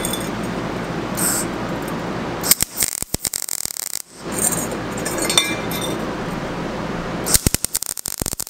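MIG welding arc on steel crackling steadily in two runs of a few seconds each, each run ending in a quick string of sharp pops as the arc stops.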